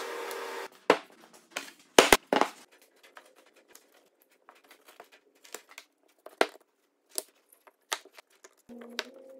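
Solid wooden blocks knocking and clacking as they are set down on a wooden board and tabletop and bumped against one another: a string of sharp, separate knocks at an uneven pace. A steady machine noise cuts off abruptly in the first second.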